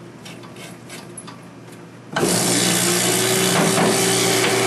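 A jeweler's bench polishing motor starts about two seconds in and runs steadily, with a 320-grit abrasive rubbing on platinum: a steady motor hum under a continuous hissing scrape.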